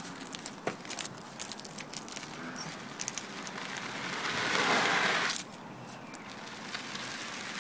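Gloved hands pressing and rubbing a sheet of gritty roofing felt down onto a glued baseboard, shifting it into position: scattered crackles and scrapes, with a louder rubbing hiss for about a second past the middle that stops abruptly.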